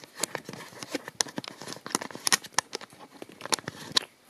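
Handling noise of a handheld camera being picked up and moved: a run of irregular clicks, taps and rustles that stops about four seconds in.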